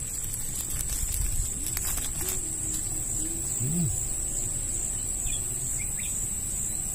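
Insects trilling in one steady, high-pitched continuous drone over a low background rumble, with a few faint curving calls a few seconds in.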